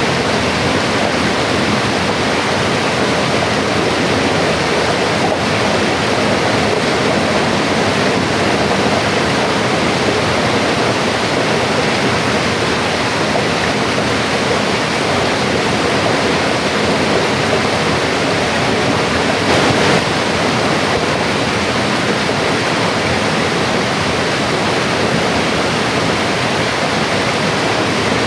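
Mountain river flowing over stones, a steady rushing of water with no music or birds. A brief slight swell about two-thirds of the way through.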